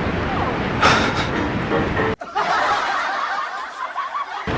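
Snickering and chuckling laughter.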